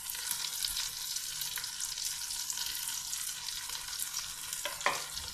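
Vegetables sizzling and crackling in hot oil in a deep nonstick pot, with a steady hiss. Freshly added shredded cabbage is frying with onion, capsicum and peas. A couple of brief knocks come near the end.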